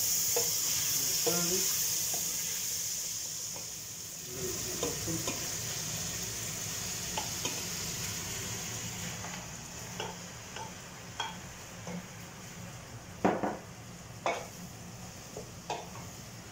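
Food sizzling in a pot on the stove while it is stirred, the steady sizzle easing after about four seconds. Scattered clinks and knocks of utensils against the pot follow, with a sharper knock late on.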